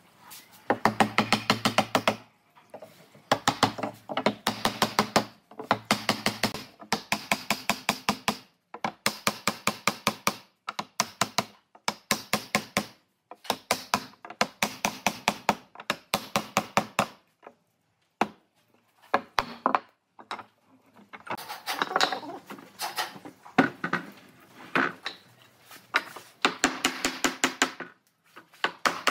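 Wood being knocked hard and fast, in runs of quick knocks lasting a second or two with short pauses between, as pine tenons are driven into the box-joint mortises of a hardwood slab.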